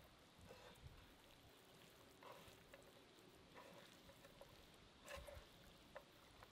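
Faint wet squishing of raw lamb being kneaded by hand with chopped garlic, a few soft separate squelches about a second apart.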